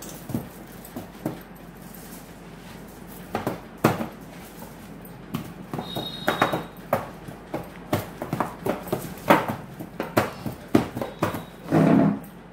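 Steel plate knocking and clicking irregularly as sticky milk-powder dough is kneaded and pressed by hand in it, with a longer, louder knock near the end.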